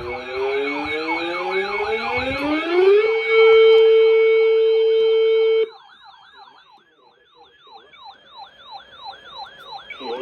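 Sirens: one tone climbs in pitch over about three seconds, with fast up-and-down sweeps over it, and settles on a loud steady tone that cuts off suddenly a little past halfway. A fainter siren keeps wailing up and down about three times a second to the end.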